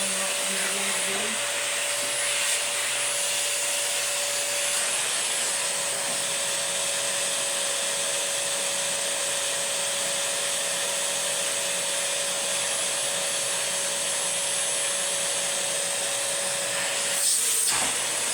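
Dyson DC25 Animal ball upright vacuum cleaner running steadily: a rush of air with a steady motor whine over it. A brief louder noise comes near the end.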